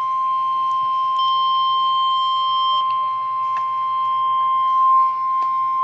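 Emergency Alert System attention signal: NOAA Weather Radio's single-pitch warning alarm tone, held steady and unbroken, announcing a severe thunderstorm warning. A few faint clicks of radio static sound through it.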